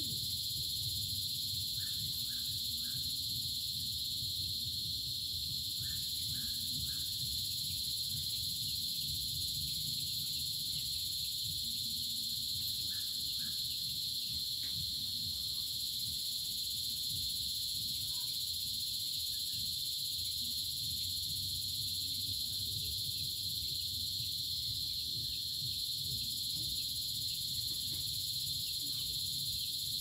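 A steady, high-pitched chorus of crickets and cicadas over a low rumble. A bird chirps a few times in short groups of three quick notes.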